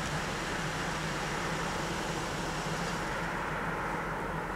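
Steady vehicle noise: a low engine hum under a rushing hiss, whose upper part fades about three seconds in.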